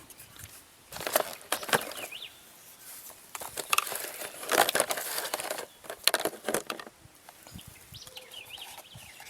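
Irregular rustling and clicking handling noises, with several louder bursts a few seconds apart.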